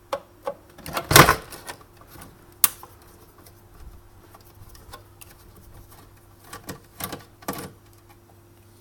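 Plastic and metal parts of a Sunbeam Cafe Ristretto EM2300 espresso machine clicking and knocking as they are handled and pried at during disassembly. There is a loud clatter about a second in, a single sharp click shortly after, and a few more knocks near the end.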